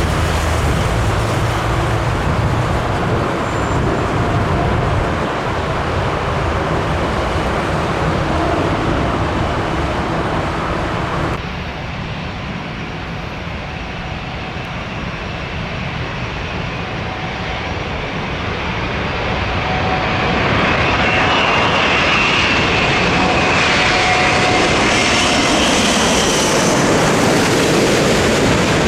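Jet airliner engines passing close on landing. A Boeing 787-9 is heard first; after a cut about 11 seconds in comes an Airbus A380, whose four engines grow louder, with a whine rising in over the rumble.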